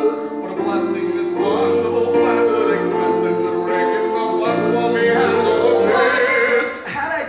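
A stage musical number: several voices singing together over piano accompaniment, with a brief dip near the end.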